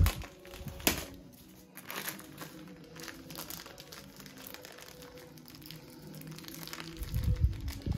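Crinkling of a small plastic sachet of grain-protectant insecticide dust as it is handled and opened by hand, with scattered sharp crackles. A dull low bump comes near the end.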